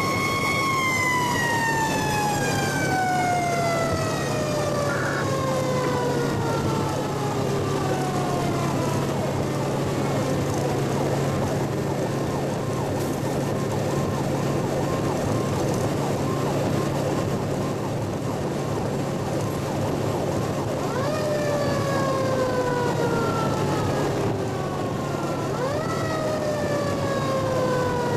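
Fire truck's Federal Signal mechanical siren heard from inside the cab: it winds down slowly over the first several seconds, then near the end is given two short bursts, each rising quickly and coasting back down. A steady engine and road-noise drone runs underneath.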